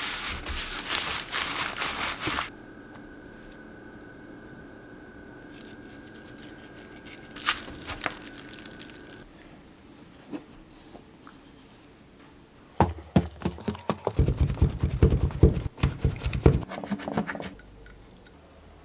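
Paper towels crinkling and rustling as they are pressed and patted onto raw beef tenderloin to blot off the blood. This is followed by a quieter stretch with a faint steady tone, and later by a run of loud knocks and thumps.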